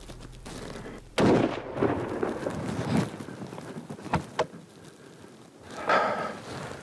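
A single hunting rifle shot about a second in, its report rolling away in a long echo. A few seconds later come two short sharp clicks.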